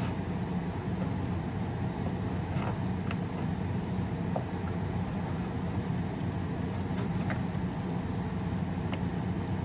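Steady low hum from the stove with a few faint pops from a lidded pan of chopped bitter melon cooking on a gas burner.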